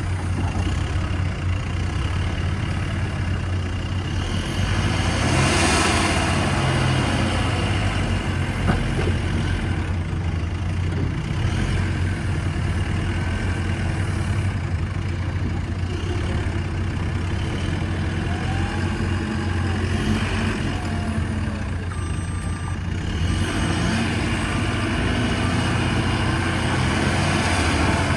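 Diesel engine of a JCB 3CX backhoe loader running steadily, getting louder for a moment about five seconds in and again near the end.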